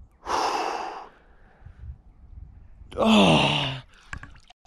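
A man's forceful breathy exhale about a quarter second in, then a voiced sigh that falls in pitch about three seconds in: cold-shock breathing while he stands immersed in freezing lake water.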